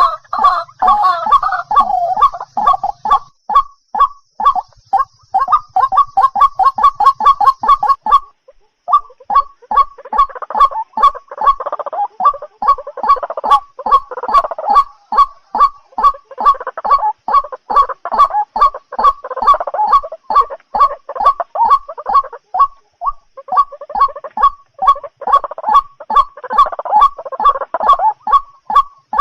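White-breasted waterhen calling in a fast run of short repeated notes, about four a second, with a couple of brief pauses. This is a lure recording of the call, the kind played to draw the birds in for trapping.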